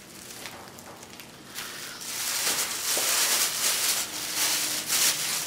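Thin plastic bag crinkling and rustling as it is handled and opened, starting about two seconds in.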